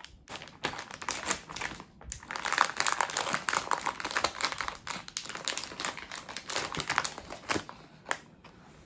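Plastic packaging of a mini Play-Doh set crinkling and crackling irregularly as it is opened and handled, with a few knocks near the end.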